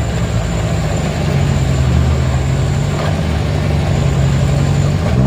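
Diesel truck engine working hard under load as the truck climbs a muddy slope, a loud, steady low drone.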